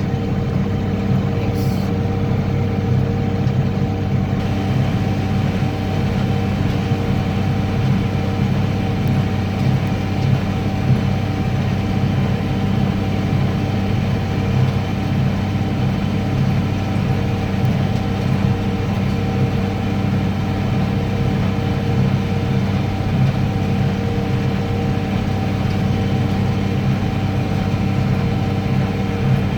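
Tractor engine running steadily, driving a small square baler through the PTO, with a constant low drone and a steady higher whine over it.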